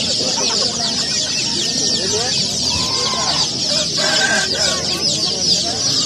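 A flock of captive Japanese quail and young chicks chirping all at once: a dense, unbroken chatter of many high-pitched cheeps, with a few lower calls in the middle.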